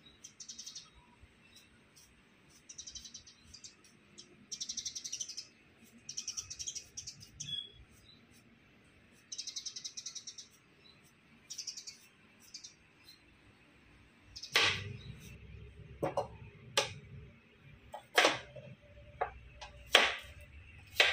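Small birds chirping in short, rapid trilled bursts, over and over. Later, a handful of sharp knocks and thumps come from handling a blender jar that holds dried chillies.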